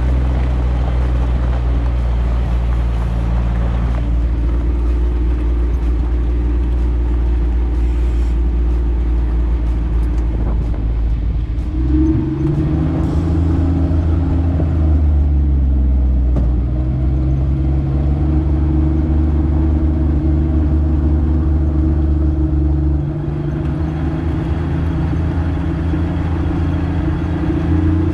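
1975 Jeep CJ5's engine running as the Jeep drives along a gravel trail, its note stepping up and down several times as it climbs and settles.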